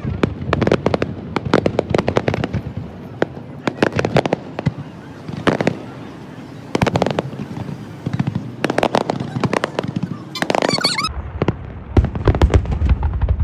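Fireworks display: a rapid, irregular series of bangs and pops from bursting shells, with a dense burst of crackling about ten seconds in and deeper, louder booms near the end.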